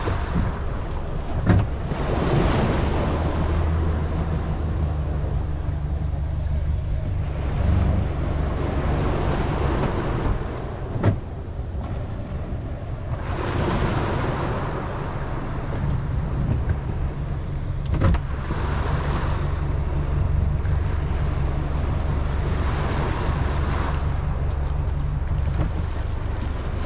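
Small waves washing and breaking in the shallows around a boat's hull, swelling and fading every few seconds over a steady low rumble. Three sharp knocks sound on the boat.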